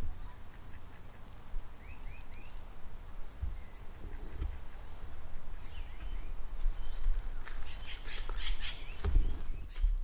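Birds calling by a pond: three short rising chirps about two seconds in, a few more around the middle, and a busier run of sharp calls near the end. Under them, wind rumbles and gusts on the recorder's unshielded microphone.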